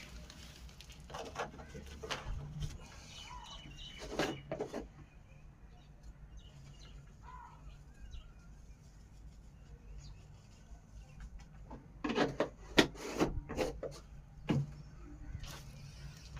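Birds being fed: a few brief calls and bunches of short sharp knocks, the loudest cluster about twelve to fifteen seconds in.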